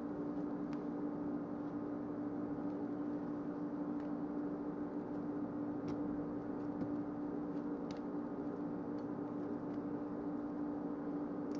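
A steady hum at one unchanging pitch over a low hiss, with a few faint taps as a butter knife cuts banana slices into a plastic blender jar.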